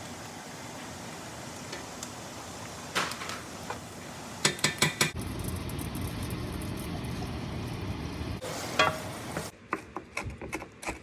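Chicken skin sizzling as it fries on high heat in a cast iron pan, with a utensil clanking and scraping against the pan as it is stirred in several short bursts.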